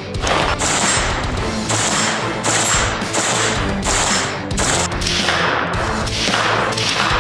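Repeated shots from a 5.56 AR-15 rifle, fired in quick succession, mixed over background music.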